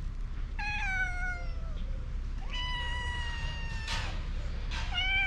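Hungry cats meowing for food: three long, drawn-out meows, each falling slightly in pitch, the third starting near the end.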